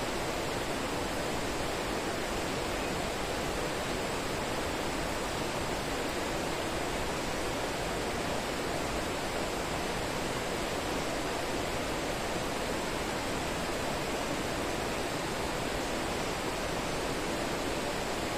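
Steady, even rushing outdoor noise with no distinct calls or knocks, and a faint high steady tone above it.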